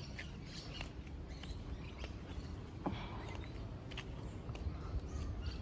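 Birds chirping: scattered short high calls, with a few faint clicks over a steady low rumble.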